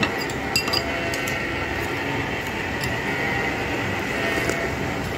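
A steady mechanical hum, with a few light clinks of a metal spoon against a bowl, most of them in the first second.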